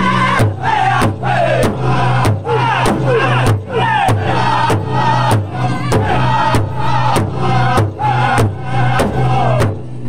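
Powwow drum group singing a chicken dance song: several men beat a large shared powwow drum in unison, about two strokes a second, while their voices sing high phrases that fall in pitch. The drumming and singing break off briefly near the end.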